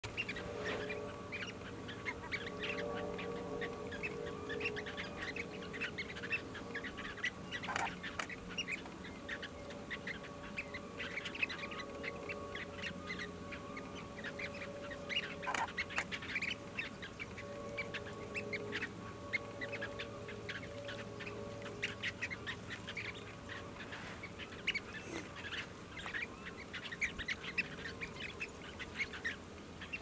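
A flock of short-billed dowitchers calling: many short, high notes in quick, irregular succession, over a steady faint hum.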